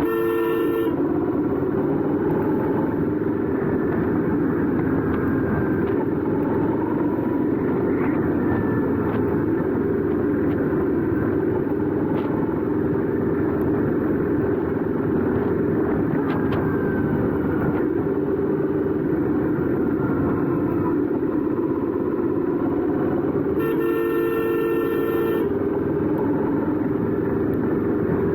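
Royal Enfield 650 motorcycle engine and exhaust running steadily under way, a dense continuous drone. A vehicle horn honks briefly at the very start and again for about two seconds near the end.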